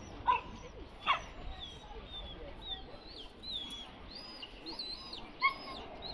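Three short, loud, high-pitched squeaks, about a third of a second, one second and five and a half seconds in. Between them, a string of small high chirps repeats steadily, like birdsong.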